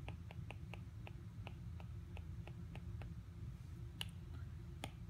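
Stylus tip tapping on an iPad's glass screen: light clicks about four a second while writing, then two sharper taps near the end as the toolbar is pressed.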